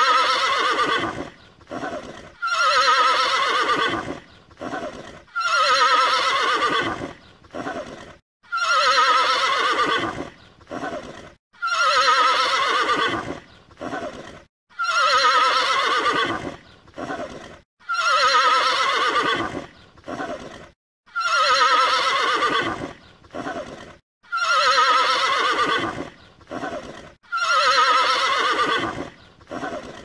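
Mare whinnying: the same loud, wavering whinny repeats about every three seconds, each one preceded by a short burst.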